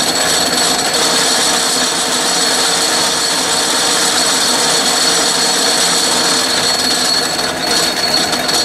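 Atlas metal lathe running under power, a steady mechanical whir with a high whine, as the threading tool takes a light pass cutting an internal thread in steel. The level dips slightly near the end.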